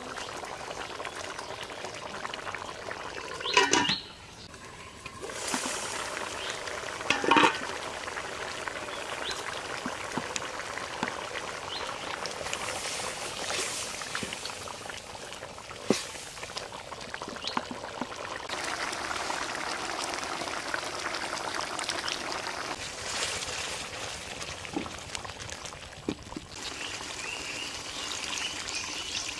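Fish curry bubbling at a boil in a wide metal karahi, then water poured into the hot pot near the end. Two short, louder sounds come about four and seven seconds in.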